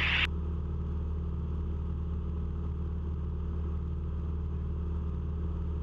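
Cessna 172's engine and propeller droning steadily in flight, heard as a low, even hum with steady tones, as picked up through the cockpit headset intercom. A burst of hiss cuts off abruptly just after the start, as when the intercom's voice-activated mic gate closes.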